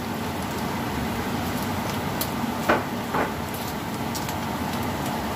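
Bacon and onions sizzling steadily in a frying pan as a wooden spoon stirs them, with a few short knocks or scrapes of the spoon a little past halfway.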